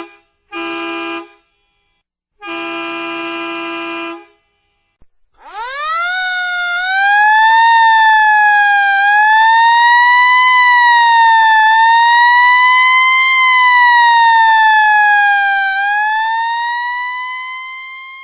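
Three blasts of a many-toned horn, then, after a short pause, an emergency-vehicle siren winds up from low and wails slowly up and down, loud and steady, fading out near the end.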